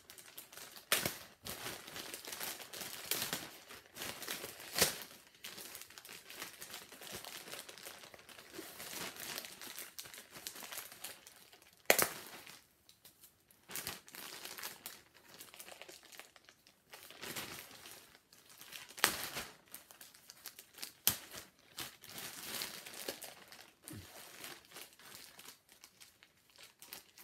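Thin white crinkly wrapping being handled, crumpled and twisted by hand: continuous irregular crinkling and rustling, with a few sharp, louder crackles.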